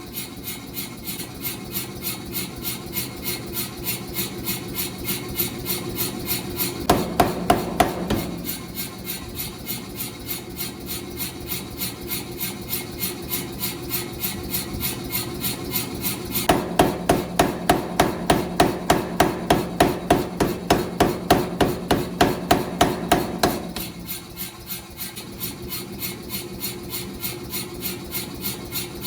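Hammer blows on a steel railroad anchor being forged, an even rhythm of about two and a half strikes a second, heavier for a few seconds in the latter half, over a faint steady hum.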